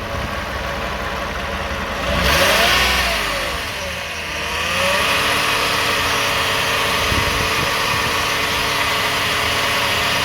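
2009 Toyota Sienna's V6 engine running. About two seconds in it is given a little throttle, and its pitch rises and falls back over a couple of seconds before it settles into a steady run. It is being revved to bring out a rattling buzz around 1000 RPM that the owner suspects comes from the flex plate, torque converter or transmission pump.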